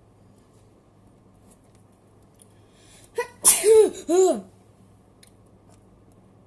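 A person sneezing once, loud and sudden, a little past halfway through: a short catch of breath, then the burst of the sneeze trailing into a second shorter burst.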